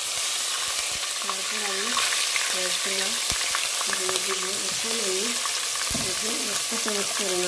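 Green chillies, garlic, ginger and turmeric sizzling in hot oil in a pot, a steady frying hiss, with scattered light clicks of a spoon stirring them.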